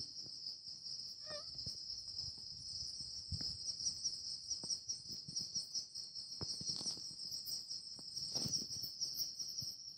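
Insects chirring in a steady, high-pitched, pulsing drone, with a few faint knocks scattered through it.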